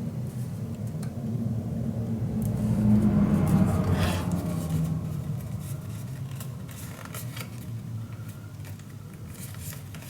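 Paper and card being handled and folded, with light rustles and clicks, over a low hum that swells about three seconds in and then fades.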